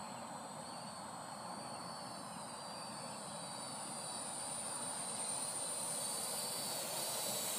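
Parrot AR.Drone 2.0 quadcopter in flight, its electric motors and propellers giving a steady high whine that grows louder as it comes closer.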